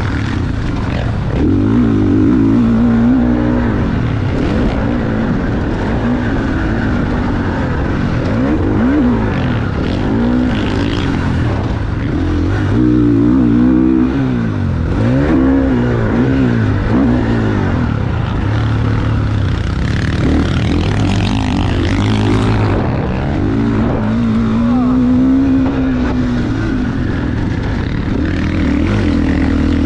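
GasGas MC 450F's single-cylinder four-stroke engine being ridden hard on a motocross track, its pitch climbing and dropping again and again as the throttle is worked through corners and shifts.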